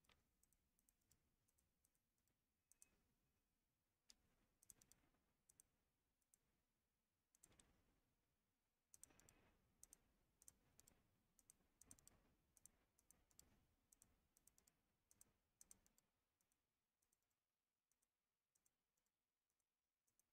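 Faint, irregular computer mouse clicks, some in quick clusters, through most of the stretch, then near silence for the last few seconds.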